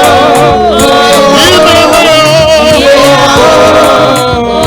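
Live gospel praise music: singing on long, wavering held notes over a bass line that steps from note to note.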